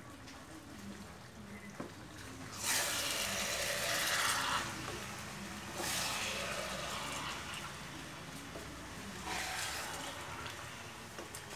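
Lapsi (hog plum) pickle with sugar sizzling in a hot wok, hissing up in three surges as it is turned over with a wooden spatula. The first surge, about two and a half seconds in, is the loudest.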